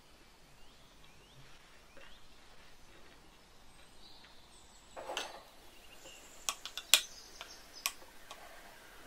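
A spoon drops crumbled sponge cake into plastic dessert cups: a soft rustle about five seconds in, then a few sharp clicks of the spoon tapping the plastic cup, the loudest near seven seconds.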